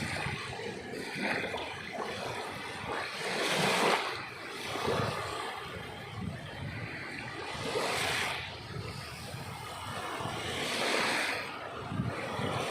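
Sea waves washing onto the shore, the surf swelling and falling back about every three to four seconds.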